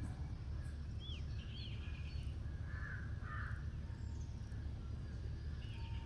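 Outdoor woodland ambience: a steady low rumble with faint bird calls over it, two short chirps about a second in, then two short harsh calls around three seconds in.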